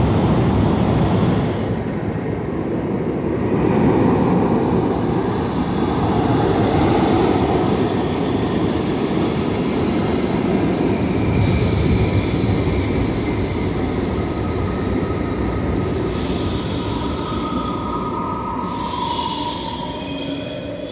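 New York City subway train of R68-series cars running along the tracks, a loud steady rumble of steel wheels on rail. Thin squealing tones from the wheels come in about halfway through and grow more prominent near the end.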